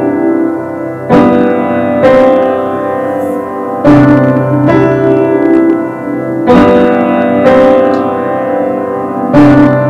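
Slow instrumental background music, mainly piano, with a new sustained chord struck every one to two seconds.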